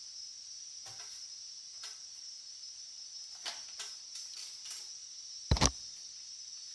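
Workshop handling of tools and brake parts: scattered light clicks and taps, then a loud double knock about five and a half seconds in, over a steady high hiss.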